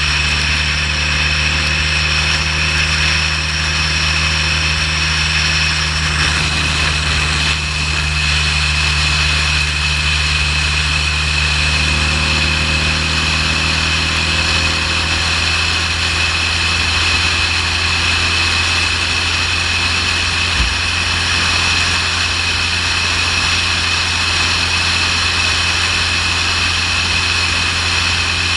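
Motorcycle engine running at a steady pitch, with an even hiss of road and wind noise over it.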